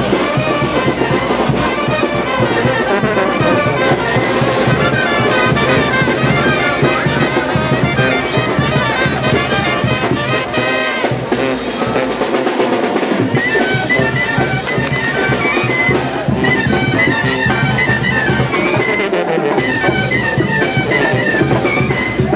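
Brass band music with trumpets and trombones playing, with a few sharp cracks over it in the middle.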